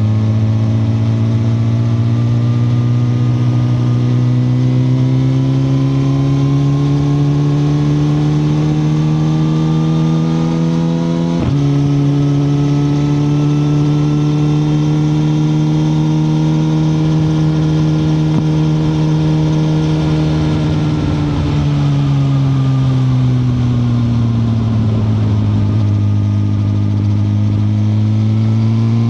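2021 Suzuki GSX-R1000R's inline-four engine heard from the moving bike. The engine note climbs slowly, breaks sharply for a gear change about a third of the way in, then holds fairly steady. It falls away as the throttle is rolled off past the two-thirds mark and rises again near the end.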